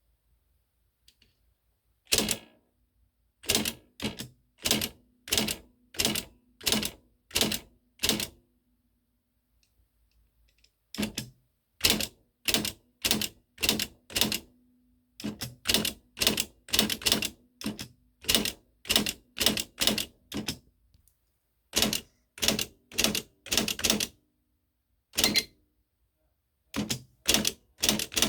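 Typewriter keys struck one at a time: loud, sharp clacks at roughly one to two a second, in runs broken by pauses of a few seconds, with a faint low hum lingering between some strokes.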